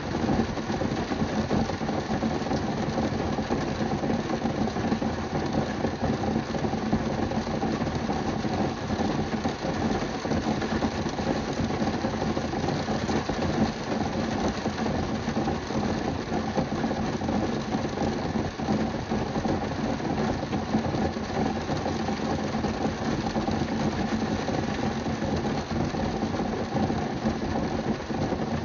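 Heavy rain drumming steadily on a car's roof and windows, heard from inside the car cabin as a dense, unbroken patter.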